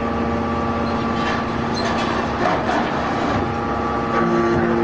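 Hydraulic scrap metal baler running: a steady hum from its motor and pump, with a few metallic knocks from the scrap about one and a half and two and a half seconds in. The hum changes pitch about four seconds in.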